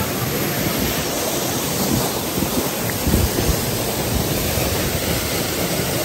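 Steady rush of a small waterfall pouring over rocks into a river, close by.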